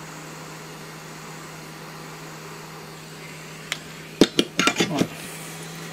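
Small hot-air gun running with a steady hum and airflow hiss as it shrinks heat-shrink tubing over a battery connector pin. A few sharp clinks and knocks come about four seconds in.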